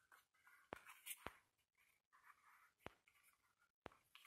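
Very faint paper handling: card stock rustling and sliding under the fingers, with a few light taps, as a folded paper pop-up piece is set and pressed onto an album page.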